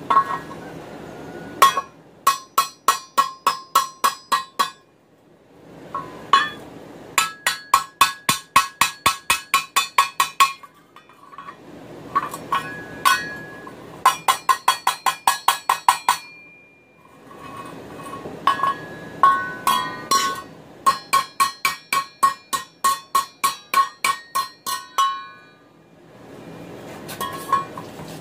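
Hand hammer striking a steel frying pan against an anvil, dressing it up after the forged handle has been riveted on. The blows come in quick runs of about four to six a second, each run lasting a few seconds with short pauses between, and every strike rings with a bright metallic tone.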